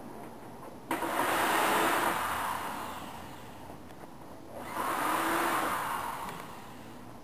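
Pneumatic ratchet running in two bursts of about two seconds each, a hissing whir that starts sharply and then fades, backing out bolts on a scooter's tail section.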